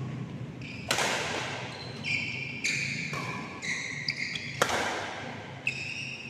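Badminton rally: two sharp smacks of a racket on the shuttlecock, about four seconds apart, each echoing in the hall, with short high squeaks of court shoes on the mat in between.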